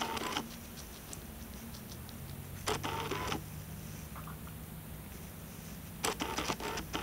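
Hamster nibbling and tugging at a bok choy leaf: three short bursts of crisp crunching and leaf crinkling, at the start, in the middle and near the end.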